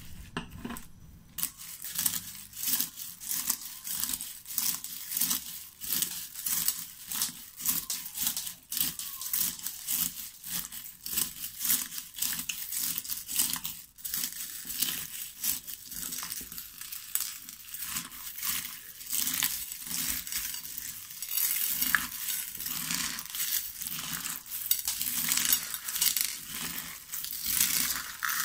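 Clear slime packed with plastic beads, sequins and charms, kneaded and pressed by hands in a glass bowl. The pieces make a dense run of small clicks and crinkles, coming in repeated pulses with each press.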